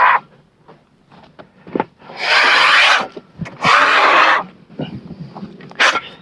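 Two long, loud, harsh animal calls about a second apart, then short sharp calls beginning near the end.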